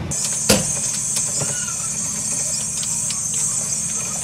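A Jeep engine idling as a steady low hum under a steady high-pitched hiss, with one sharp knock about half a second in and a few faint clicks after it.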